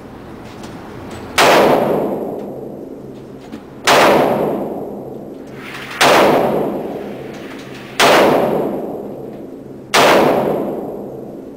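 .357 Magnum handgun fired five times at a steady pace, about two seconds between shots, each shot followed by a long echoing decay.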